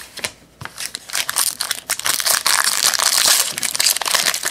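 Foil wrapper of a trading-card pack being torn open and crinkled by hand: a few light clicks of cards being put down, then dense crackling from about a second in.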